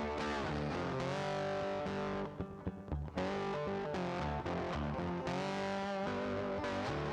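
Background music led by a distorted electric guitar, with a brief break about two and a half seconds in.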